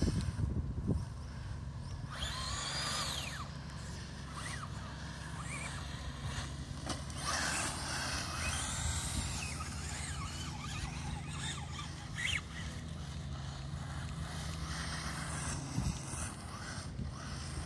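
HSP radio-controlled rally car driving and sliding on sand: its motor whines up and down in pitch with the throttle, over the hiss of its tyres scrabbling through the sand. A steady low hum runs underneath.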